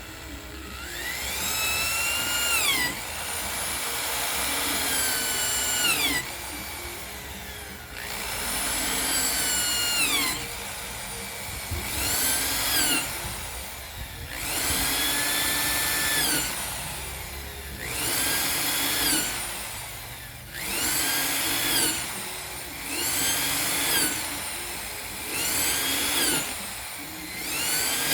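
Electric drill run in short bursts, about nine times, its motor whine rising in pitch as the trigger is squeezed and falling away as it is released.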